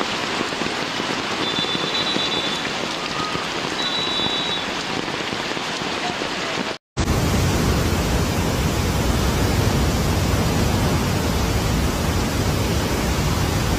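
Heavy rain pouring onto a flooded street, a steady hiss, with two faint short high tones about two and four seconds in. About seven seconds in it cuts to a louder, deeper rush of water pouring through a dam's open floodgates.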